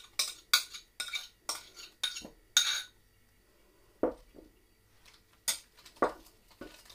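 Metal spoon clinking and scraping against a small bowl as tomato paste is scraped out of it, about seven quick clinks in the first three seconds. A few separate, duller knocks follow in the second half.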